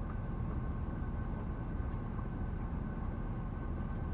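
Steady drivetrain and road drone inside a 2011 GMC van's cabin, with a steady high whine over it from the van's very loud rear end (rear differential).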